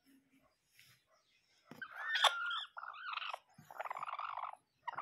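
Bantam chicken making a run of harsh, raspy calls that start about two seconds in, the first ones with a bending pitch, then choppy repeated squawks, as a hand reaches into the cage to touch it.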